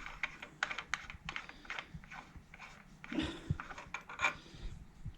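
Irregular run of small sharp clicks and light metallic knocks, several a second, as the altitude cam lock knob of an iOptron MiniTower mount is unscrewed and handled.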